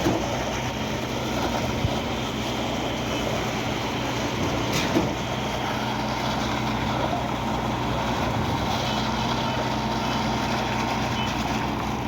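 Concrete pump truck's diesel engine running steadily under load, with one sharp knock about five seconds in.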